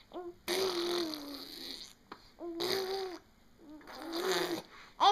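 Baby blowing wet raspberries: three drawn-out hums through buzzing, spluttering lips, each about a second long, with short pauses between.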